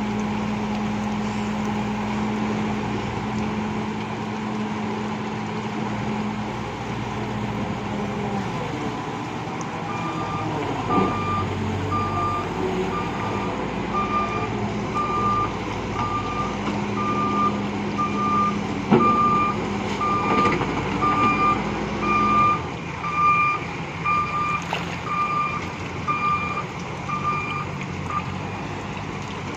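Bull backhoe loader's diesel engine running. Its reversing alarm beeps about once a second from about ten seconds in until near the end, and there is a single knock partway through.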